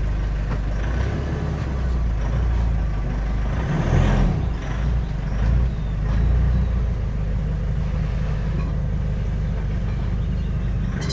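Steady low rumble of a motor vehicle on the move, swelling briefly about four seconds in, with a few sharp clicks near the end.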